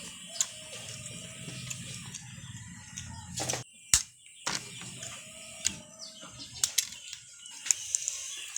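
Scattered sharp clicks and taps over a steady high insect drone, with a brief dropout of almost all sound about four seconds in.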